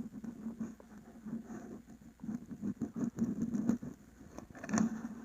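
Handling noise from a phone with a clip-on microscope lens being moved over a wool scarf: irregular rubbing and scraping close to the microphone, with soft knocks and one sharper knock near the end.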